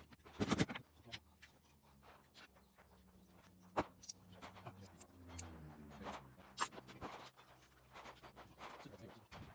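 Small clicks and knocks of a Glock 26 pistol being taken apart by hand, as it is stripped to change the disconnector. A few sharper clicks come about half a second in, near four seconds and near six and a half seconds, over a faint low hum.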